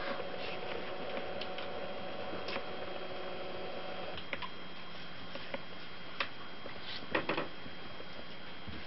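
Scattered small clicks and taps over a steady background hum, with a quick cluster of clicks about seven seconds in. A steady droning tone underneath stops suddenly about four seconds in.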